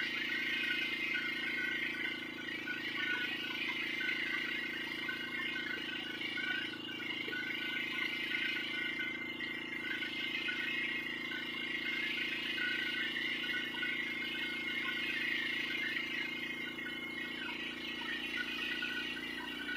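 A motor running steadily at idle: a continuous low hum with a higher steady whine above it.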